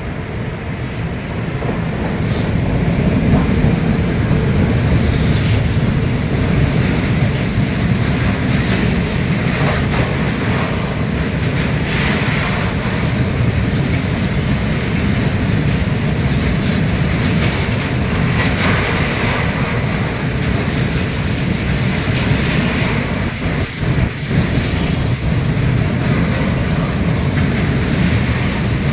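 Freight train of tank wagons passing close by: a loud, steady rumble of wheels on rails with scattered clattering knocks, building over the first few seconds as the locomotive arrives.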